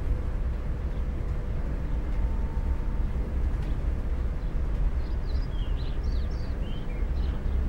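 Steady low outdoor rumble, with a cluster of short, high bird chirps about five to seven seconds in.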